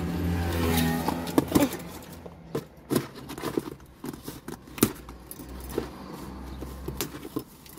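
Hands handling a cardboard shipping box, fingers tapping and pulling at its top flap: a run of short sharp clicks, knocks and scrapes over a low hum.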